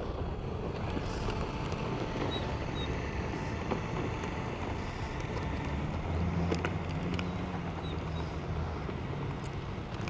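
Steady low rumble with wind on the microphone, with a faint steady tone through the first half and a few light clicks.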